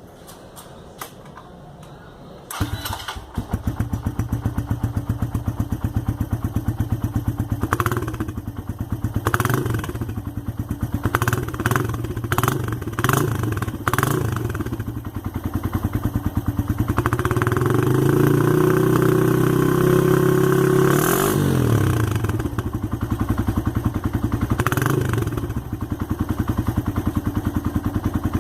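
Suzuki Intruder 125's single-cylinder four-stroke engine, fitted with a nearly new bevel-cut (chanfrado) aftermarket exhaust, starts about two and a half seconds in and settles into an even pulsing idle. It is then blipped several times, held at higher revs for a few seconds and dropped sharply back to idle, with one more blip near the end.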